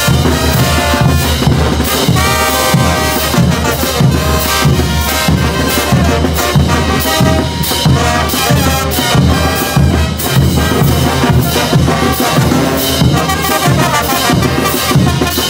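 Marching brass band playing: trumpets, trombones and sousaphones together over a bass drum and clashing hand cymbals keeping a steady beat.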